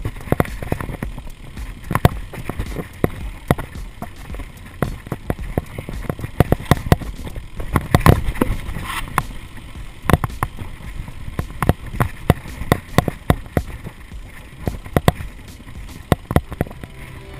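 Mountain bike rolling fast downhill over rock and gravel, its frame, chain and wheels rattling with many irregular sharp knocks over a steady low rumble of tyres on the trail.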